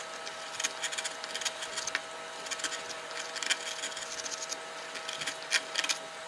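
A 3 mm #11 carving gouge cutting fine hairlines into wood, a run of short, irregular crisp scraping cuts. A faint steady hum runs underneath.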